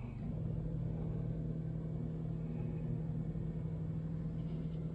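Samsung dishwasher starting its cycle just after the start button is pressed: a steady motor hum comes on a moment in and runs on evenly.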